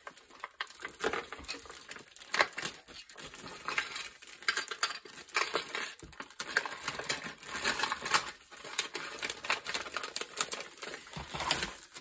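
Clear plastic wrapping crinkling and rustling in irregular crackles as it is pulled off a rolled diamond-painting canvas.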